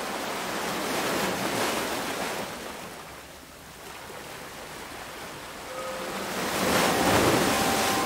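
Ocean surf washing against the shore in two swells, the second and louder one near the end. A few faint chime tones ring out over the surf near the end.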